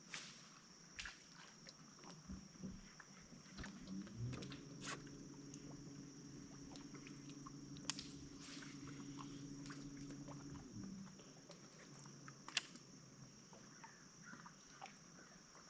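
Electric trolling motor humming steadily for about six seconds, switching on a few seconds in and off again past the middle, amid scattered light clicks and knocks in the boat. A faint steady high whine runs underneath.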